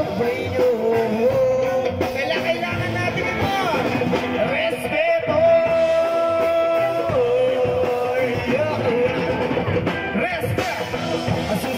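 Live rock band playing loudly through a PA: drums, electric bass and guitar, with singing. A long note is held for a second or two a little after the middle.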